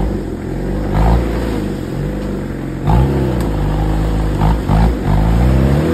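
Off-road 4x4's engine revving in repeated surges, its pitch climbing and falling several times while the vehicle works its way through a gully.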